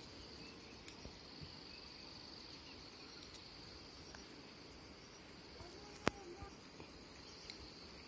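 Faint, steady high-pitched insect chorus in the surrounding vegetation, with a single sharp click about six seconds in.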